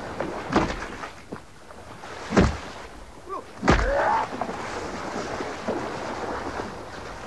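Sledgehammer blows striking into shallow water with splashing: three heavy strikes, the second and third the loudest, followed by sloshing water.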